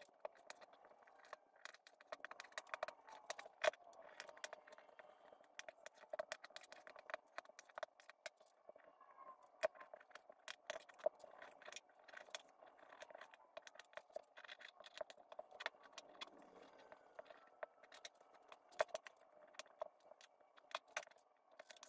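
Kitchen knife tapping and scraping against a plastic cutting board while slicing pork shoulder into strips: many faint, sharp ticks at irregular intervals.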